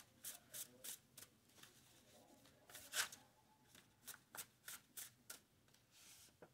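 A deck of cards being shuffled by hand: a faint run of quick snaps, about three a second, with a louder one about three seconds in.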